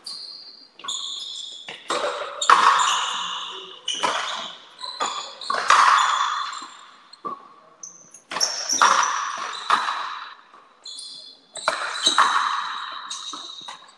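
A frontenis rally: the rubber ball is struck by rackets and smacks off the front wall and floor of the fronton. About a dozen sharp hits come every second or so, each ringing out in the court's echo, with short high squeaks between them.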